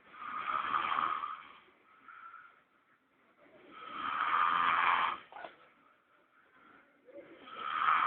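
A person snoring: three long snores, one every three and a half to four seconds, each swelling up and dying away, with quiet breathing gaps between them; the last comes near the end.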